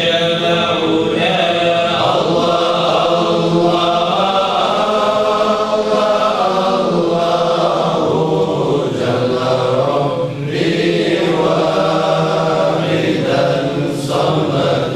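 Group of men chanting together in unison: a continuous devotional chant.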